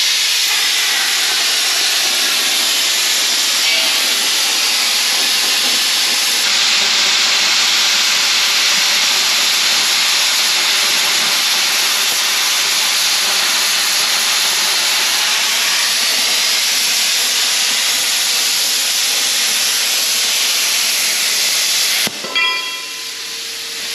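Cutting torch cutting through 12 mm steel plate, a loud steady hiss that cuts off suddenly near the end as the cut stops.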